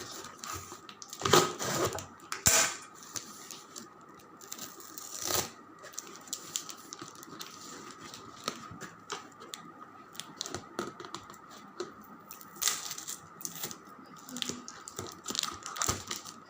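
Parcel packaging being handled and torn open: irregular rustling, scratching and sharp crackles, with louder tears about a second in, around five seconds and near the end.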